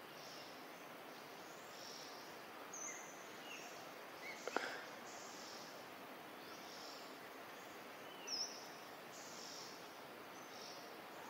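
Faint outdoor ambience: a steady soft hiss with scattered high chirps. A short chirp comes about three seconds in and another about two-thirds of the way through, with a sharp click around the middle.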